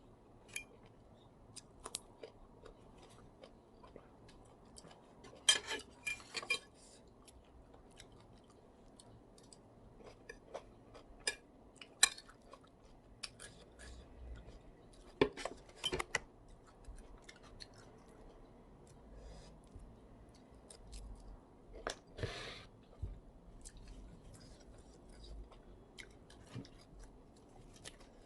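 A person eating a spicy instant-noodle salad with shrimp and squid: chewing and crunching, with scattered sharp clicks of cutlery on the dish and a few louder clusters of clatter.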